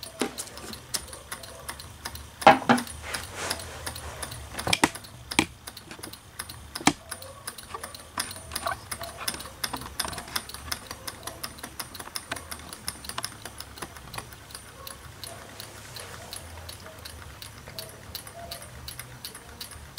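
Small solar Stirling engine running with rapid, regular light ticking from its crank and linkage, still turning on stored heat after coming off its heat source. A few louder knocks in the first seven seconds.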